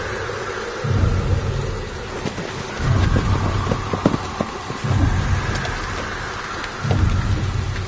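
Steady rain, under a deep low throb that swells about every two seconds and lasts over a second each time, with scattered sharp drips and ticks around the middle.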